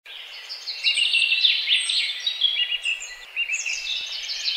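A dense chorus of many small birds chirping and trilling over one another, with short rising and falling calls overlapping continuously.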